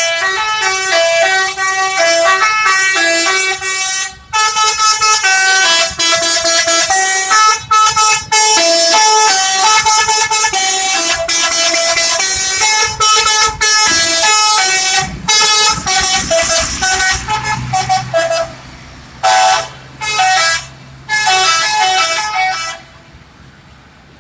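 Bus telolet horn, a multi-tone air horn, playing a loud melody of quickly changing notes with short breaks between phrases. A low steady hum sits underneath in the second half, and the horn stops near the end.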